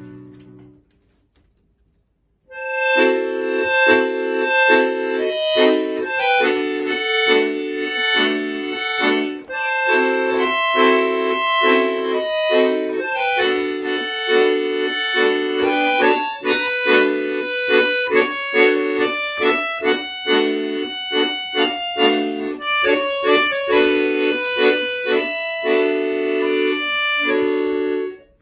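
Solo accordion: a held chord dies away, then after about two seconds of silence a lively piece begins, with short repeated chords in the lower register under a quick melody, and it breaks off at the very end.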